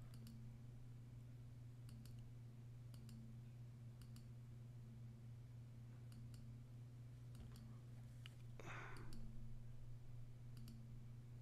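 Soft, irregular computer mouse clicks as photos are paged through, over a steady low electrical hum, with a brief soft hiss about eight and a half seconds in.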